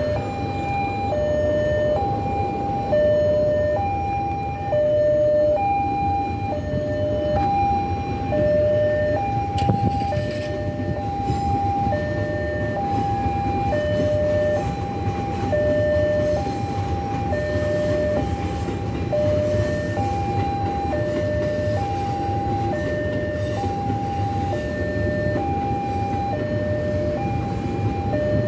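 Railway level-crossing alarm sounding a continuous two-tone warning, alternating steadily between a higher and a lower note, each held just under a second. Beneath it runs the low rumble of an electric commuter train passing.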